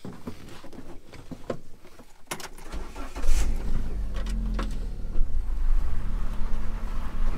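Keys and switch clicks, then the Moke's engine is started about three seconds in and settles into a steady idle.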